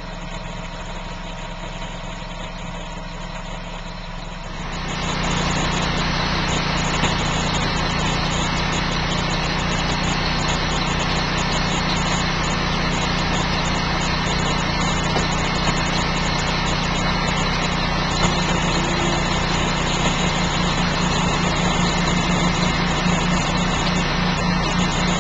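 Ready-mix concrete mixer truck's diesel engine running at idle, then rising to a louder, higher steady run about four and a half seconds in, which fits the engine being sped up to turn the drum while concrete is discharged down the chute.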